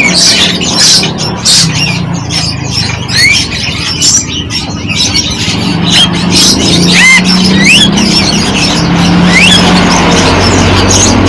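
Several birds chirping and squawking together: a dense run of sharp calls with a few short rising whistles.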